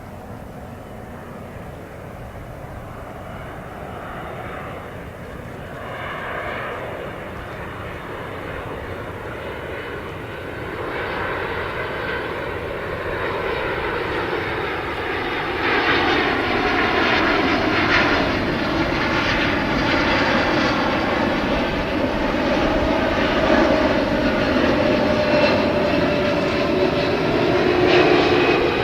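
Jet airliner engines growing steadily louder as the aircraft approaches and passes close by. In the second half its whining tones sweep downward in pitch.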